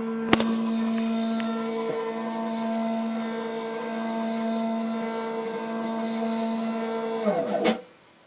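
CNC machine's motors running with a steady, pitched whine and a few sharp clicks. Near the end the pitch swoops down and up, then the sound cuts off suddenly.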